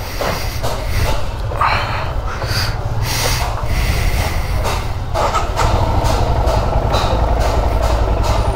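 Royal Enfield Himalayan's single-cylinder engine idling with a steady low thump, getting louder from about five and a half seconds in, with scattered clicks over it.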